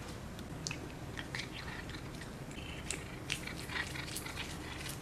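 A cat biting and chewing a blade of fresh grass, a run of short irregular crunches.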